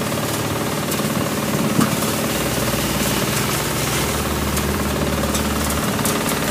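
Pasquali two-wheel tractor engine running steadily, driving a small stationary threshing machine through its PTO shaft.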